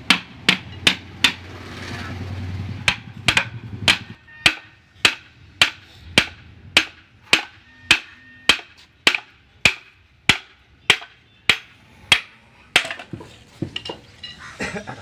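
Hammer striking metal in a long series of blows, each ringing briefly: a few quick blows at first, then a steady beat of about one and a half blows a second, turning irregular near the end.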